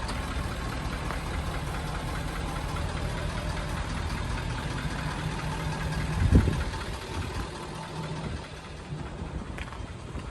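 2019 Ford F-250's 6.7-litre Power Stroke V8 turbodiesel idling steadily with diesel clatter. A brief low thump about six seconds in, then the idle sounds a little fainter.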